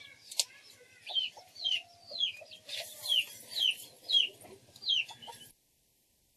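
A bird chirping: a string of short, high, falling chirps about twice a second, with a sharp click about half a second in. The sound cuts off abruptly near the end.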